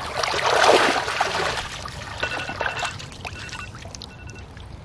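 Water splashing and streaming off a body as a person rises and climbs out of a cold-water plunge pool, loudest in the first second and a half, then dwindling to scattered drips and small splashes.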